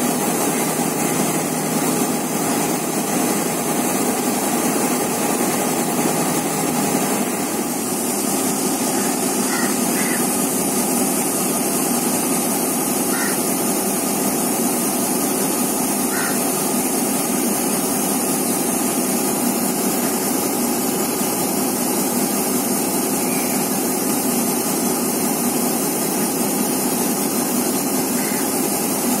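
Sri Lanka Railways Class M7 diesel-electric locomotive's GM 8-645E two-stroke V8 diesel idling steadily, its tone shifting slightly about seven seconds in.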